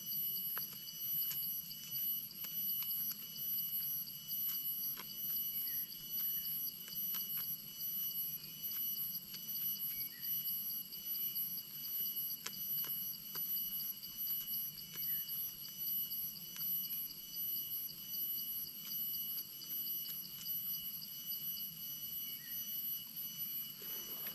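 A chorus of forest insects: several steady, high-pitched tones, one of them a fast trill, held without a break. Faint scattered ticks and rustles sit beneath it.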